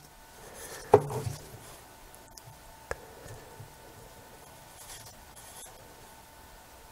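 Faint handling sounds from a camera lens being reassembled, as a ring is fitted and turned to line up its holes: a sharp click about a second in, a smaller tick about two seconds later, and light scraping near five seconds.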